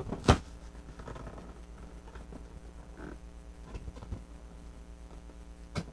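Large cardboard toy box being turned over and set down on a table: one sharp knock about a third of a second in, then lighter taps and rubbing of cardboard near the middle and the end, over a steady low electrical hum.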